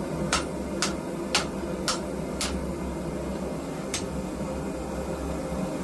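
Hammer blows on steel blade stock, bending it to a curve: five sharp strikes about two a second, then one more after a pause, over a steady low hum.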